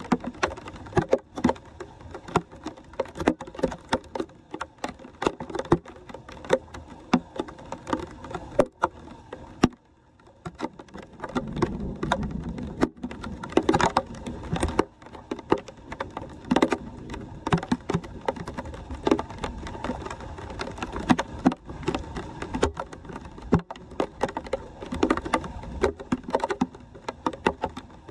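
Rain falling on flowing floodwater, with irregular sharp taps and splashes as wet leaves and debris are pulled off a metal street-drain grate by hand. About ten seconds in the sound drops briefly, then a low rumble follows for a few seconds.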